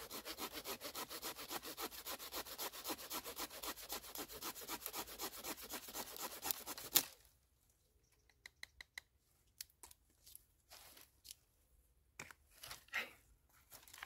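Small hand saw cutting through a dry wooden branch in quick, even strokes, about four or five a second, stopping about seven seconds in with a sharp click as the cut finishes. Faint rustling and clicks of handling follow.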